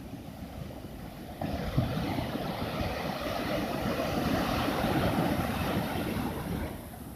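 A sea wave breaking and washing in: a rushing surge starts suddenly about a second and a half in, swells, and dies away near the end. Under it runs a steady low rumble of wind on the microphone.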